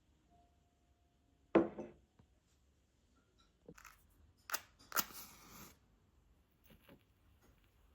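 Objects being handled: one sharp knock, then several clicks and a short rustle, with a couple of faint clicks near the end.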